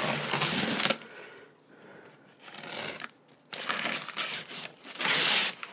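Scissor blade slitting the packing tape on a cardboard box, then after a pause of a couple of seconds the tape and cardboard flaps being pulled and crinkled, loudest near the end.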